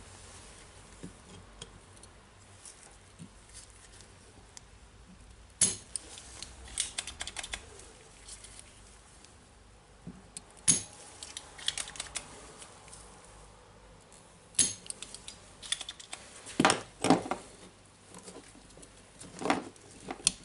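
Scattered light clicks and small clatter of hand tools and a small drill motor being handled while a wire is soldered onto the motor's terminal. A few sharper single clicks come about six, eleven and fifteen seconds in, and a denser run of clicks near the end.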